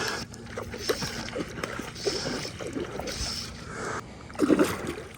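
Water splashing and sloshing in short, uneven bursts, with small knocks against a boat: a hooked trout thrashing at the surface.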